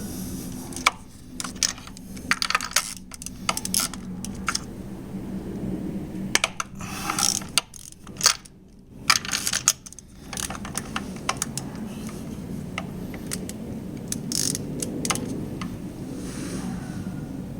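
Metal hand tools clicking and clinking in irregular clusters, with quick runs of ratchet-like clicks, over a steady low hum.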